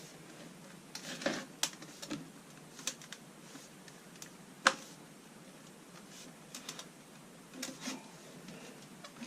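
Small 3-inch round sheet-metal flue pipe being worked together by hand, its seam edges clicking and ticking irregularly as they are pressed into place, with one sharper click a little before halfway.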